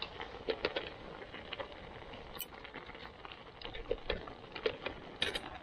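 Thick chilli simmering in an aluminium pot over a Trangia meths burner, popping and spluttering in small irregular plops, with a few light metal clicks as a pot gripper takes hold of the pot near the end.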